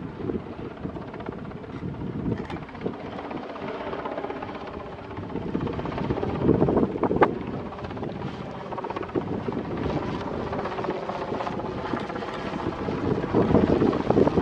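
Westland Wessex helicopter in flight: a steady beat of the rotor with engine drone, getting louder near the end as it comes closer.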